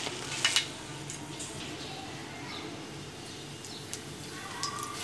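Whole spices and dried red chillies dry-roasting on a hot steel pan: a few sharp crackles and ticks, two close together about half a second in and more scattered later, over a faint steady background.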